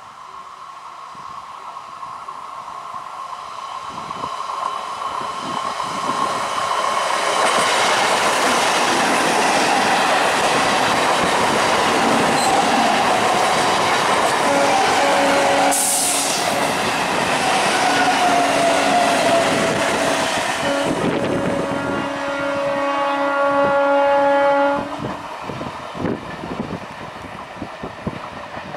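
ICF EMU electric local train passing at speed: the rush of wheels on rails swells over several seconds to a loud steady roar. In the second half a train horn sounds for several seconds, then the sound drops suddenly, leaving fainter clicking of wheels on the rails.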